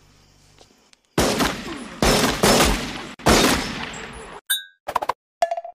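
Several gunshots, each a sudden loud crack with a fading echo, spaced about a second apart, as a man is shot. Near the end come a few short clicks and a brief beep.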